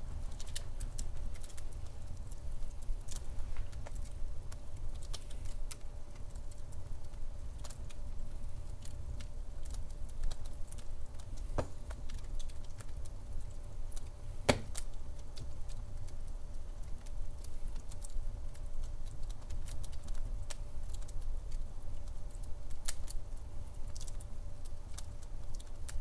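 Douglas fir logs burning in a fireplace, crackling with small irregular pops over a steady low rumble, with one sharper pop about halfway through.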